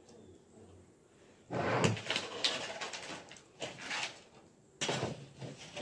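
Salad being stirred and broken up with a plastic fork in a plastic salad bowl: rustling of leaves and knocking and scraping of plastic, in a long burst about a second and a half in and two shorter bursts later.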